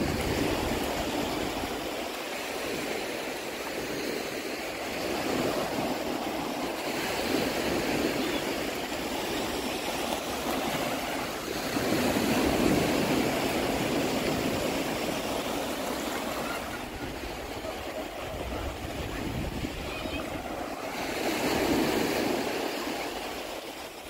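Small North Sea waves breaking and washing up a sandy shore, a steady surf sound that swells louder about halfway through and again near the end.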